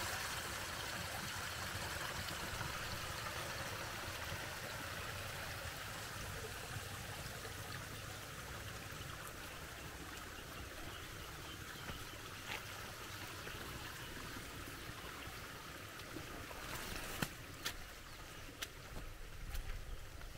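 Muddy stormwater runoff pouring from a road culvert pipe and running down an erosion gully: a steady rush of water that slowly fades. A few sharp ticks near the end.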